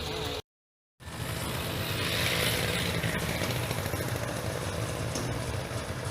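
Engine of a rice combine harvester running steadily with a low, even rumble. The sound drops out to total silence for about half a second just under a second in, then resumes.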